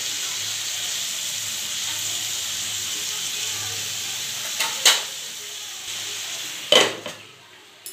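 Shredded cabbage and potatoes sizzling in a kadai with oil and a little water, a steady hiss. Two sharp knocks on the pan come about five and seven seconds in, and the sizzle fades away near the end.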